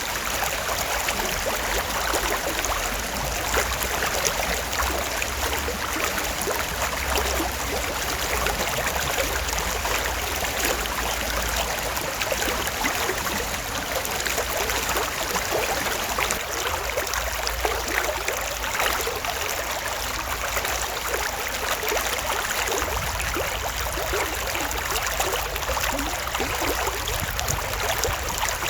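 Shallow creek water running and trickling steadily over stones.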